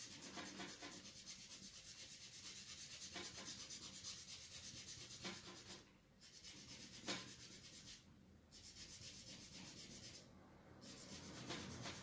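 Faint rubbing of a dental cotton roll blending soft oil pastel on heavy paper, in repeated strokes with a few brief pauses.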